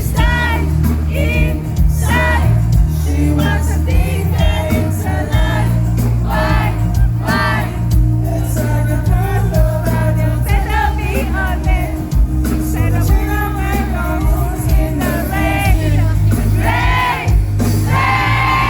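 A live pop-rock band playing with a male lead vocal over heavy bass and drums, recorded from within a festival crowd.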